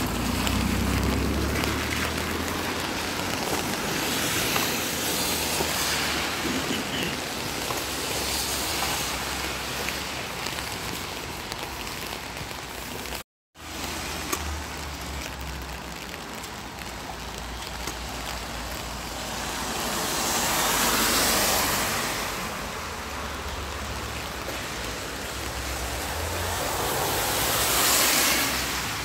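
Traffic on a wet street: car tyres hissing on wet asphalt over a steady background hiss, with a car's engine rumbling close by at the start and two passing vehicles swelling louder in the second half. The sound cuts out for a moment about halfway.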